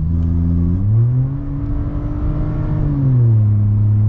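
Volkswagen T-Cross 1.0 TSI three-cylinder turbo engine, Stage 1 tuned, running through an exhaust with no muffler after the catalytic converter: a loud, resonant drone. The revs climb about a second in, hold, then drop back near the three-second mark.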